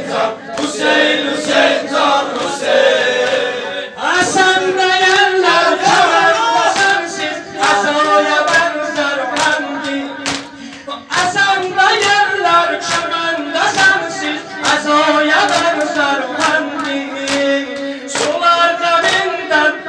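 Men singing a Shia mourning lament (noha) for Hussein in unison, with long held notes, while beating their chests in a steady rhythm of sharp slaps. The singing breaks off briefly about four seconds in and again around eleven seconds, then resumes.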